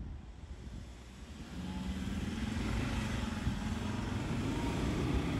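Ford Ranger pickup's diesel engine working hard under throttle as the truck climbs a steep dirt hill, getting louder about a second and a half in.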